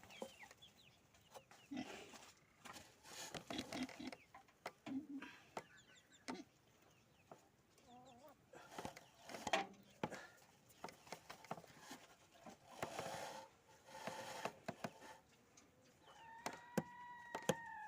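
Chickens clucking, mixed with scattered sharp knocks. Near the end one bird gives a long drawn call that holds steady and then falls in pitch.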